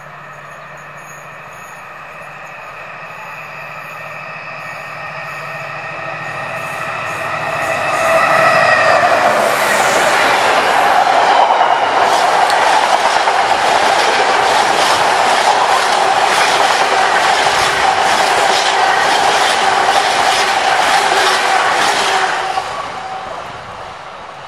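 Colas Rail Class 70 and Class 66 diesel locomotives approach and pass at the head of a freight train, their engine note growing steadily louder for about eight seconds. Then a long rake of flat wagons rumbles and clatters past over the rail joints with a steady whine, until the sound drops away sharply near the end as the last wagon goes by.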